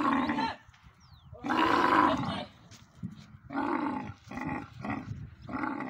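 Female dromedary camel calling as she is pulled up into the back of a truck. A long call ends just after the start, a second long call comes about a second and a half in, and a run of four shorter calls follows in the second half.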